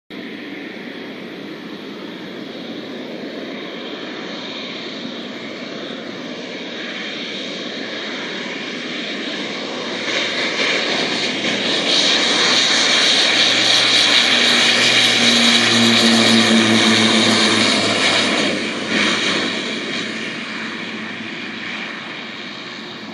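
Pilatus PC-12 single-engine turboprop taking off. The turbine and propeller sound builds as it accelerates down the runway, is loudest a little past the middle with a low propeller hum, then fades as it lifts off and climbs away.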